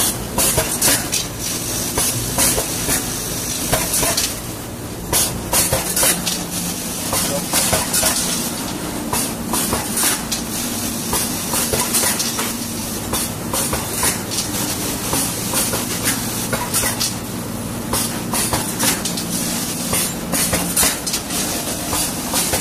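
Automatic screw-counting pouch packing machine running: a steady low hum under repeated clicks and clatter, with short bursts of air hiss from its pneumatic sealing and cutting head.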